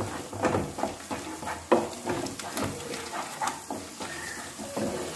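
A wooden spatula stirring and scraping thick tomato masala in a non-stick kadai, with a light sizzle from the frying paste. The scrapes come irregularly, the loudest a little under two seconds in.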